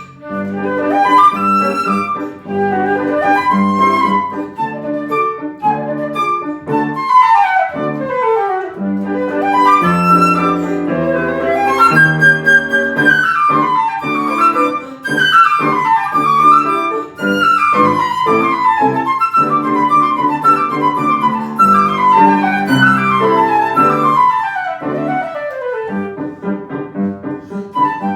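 Flute and piano playing a fast galop: the flute plays quick runs that sweep down and back up over steady piano chords.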